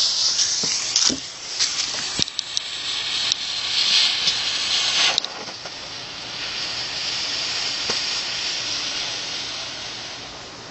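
Blue smoke ball firework hissing as it burns. A loud sputtering hiss with a few sharp clicks cuts off suddenly about five seconds in. A softer, steady hiss follows as the ball pours out white smoke, and it fades near the end.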